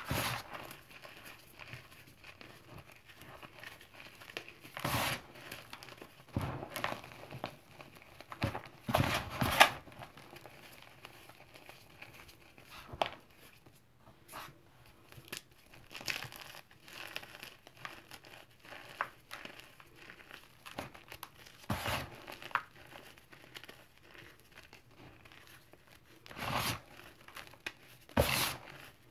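Hands crumbling and sifting crispy chunks of gym chalk and cornstarch in a bowl: soft powdery crunches and crackles in irregular bursts, the loudest about nine to ten seconds in and again near the end.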